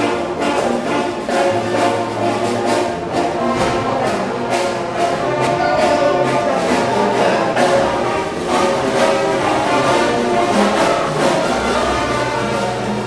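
Orchestral music with brass instruments, playing steadily over the opening titles.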